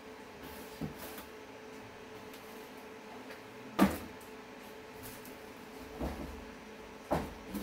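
Boxes and PC tower cases being handled and set down on a table: a few separate knocks and thuds, the loudest just before four seconds in, over a faint steady hum.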